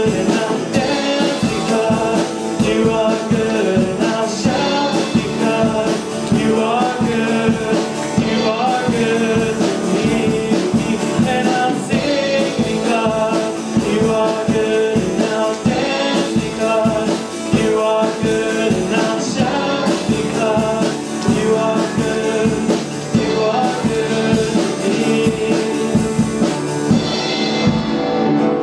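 Worship song: singing over guitar and drums with a steady beat.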